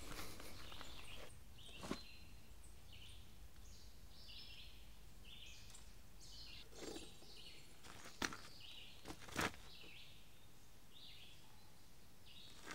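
Birds chirping in short, repeated calls, with a few sharp knocks a little past the middle.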